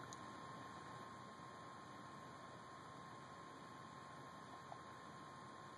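Near silence: room tone with a faint steady hiss and a thin steady hum.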